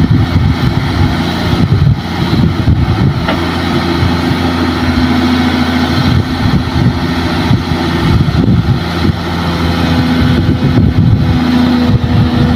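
Kobelco SK200 excavator's diesel engine running under load while it works, with a hydraulic whine that comes up in the middle and again near the end as the boom and bucket move.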